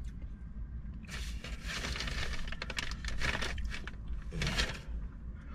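Paper takeout food packaging rustling and crinkling as it is handled, starting about a second in and lasting a couple of seconds, with a shorter burst of crinkling near the end.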